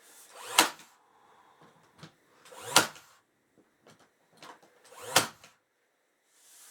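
Hammer driving nails into wood: three loud blows about two seconds apart, with lighter knocks between them.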